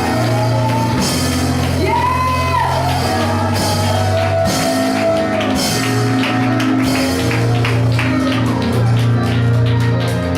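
Band music with held bass notes and a drum kit, a voice singing over it in the first seconds; the drum strokes come quicker in the second half.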